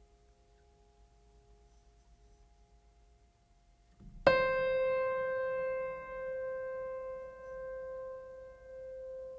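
A single loud struck musical note about four seconds in, ringing on and slowly fading. Before it, only faint steady tones.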